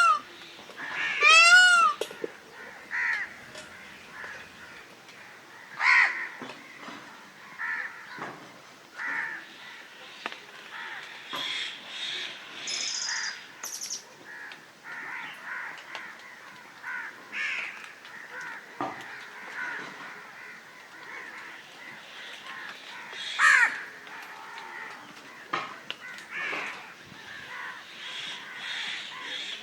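Crows cawing again and again, one call after another, with a loud call about a second and a half in and others at about six seconds and near twenty-four seconds.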